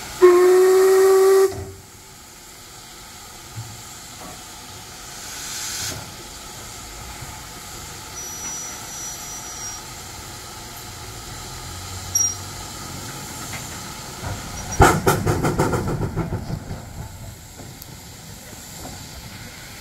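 LMS Black Five steam locomotive 44932 sounding one short whistle of just over a second, then steam hissing steadily. About three-quarters of the way through it starts away with a loud burst of rapid exhaust beats that fades over a couple of seconds.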